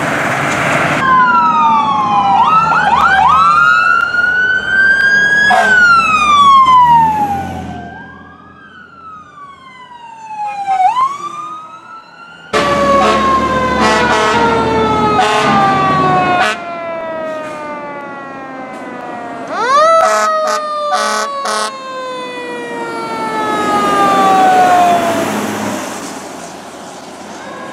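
Fire truck sirens: wails rising and falling in pitch, then one long slow falling wail over about twelve seconds, with a quick run of short blasts about two-thirds of the way through.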